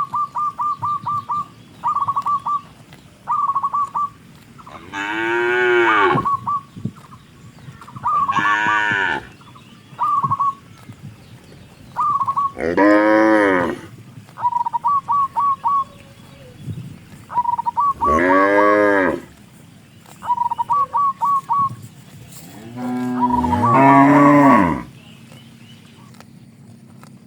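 Cattle mooing five times, long calls that rise and fall in pitch. Between the moos, a bird repeats quick runs of short, even, high pips.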